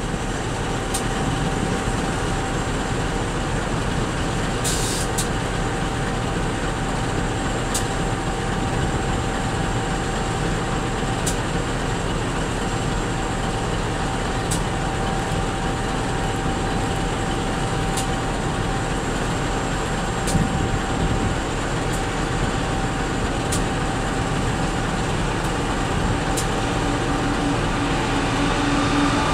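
Steady rumble of diesel locomotives on a coal train close by, with a constant hum and a faint tick about every three seconds. It grows a little louder near the end as a second coal train approaches.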